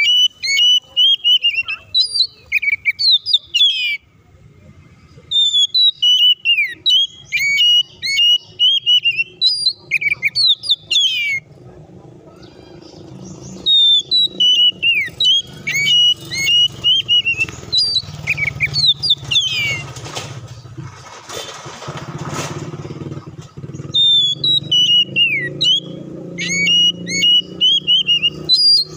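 Caged oriental magpie-robin singing loud, varied song of whistles and fast chattering notes in four long bursts with short pauses between them. A low rumble of a passing motor builds in the background during the second half, most plainly in the pause about twenty seconds in.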